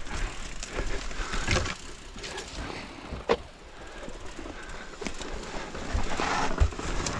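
Mountain bike rattling and clicking over rough trail ground, with scattered knocks and a sharp click about three seconds in.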